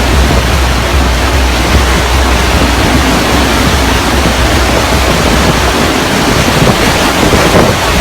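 Hurricane-force wind and storm-surge water making a loud, steady rushing roar, with wind buffeting the microphone in a low rumble that eases off near the end.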